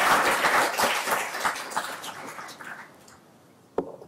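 Audience applauding, the clapping dying away over about three seconds. Two short knocks come near the end.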